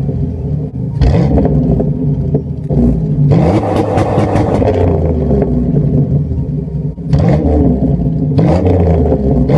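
A Pontiac's engine heard from its dual exhaust tips, running at idle and revved in several short blips that rise and fall back.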